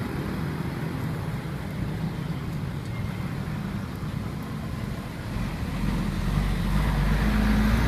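Street traffic noise, with a low engine rumble that sets in about five seconds in and grows louder.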